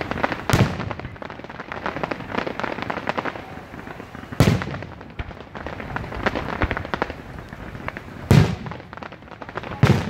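Fireworks display: aerial shells burst with four loud booms a few seconds apart, over a near-constant rapid crackling from crackle-star effects.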